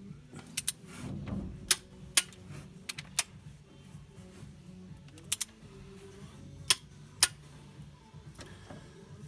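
Hand tools and metal engine parts clinking and tapping: about ten sharp clicks at uneven intervals, over a steady low hum.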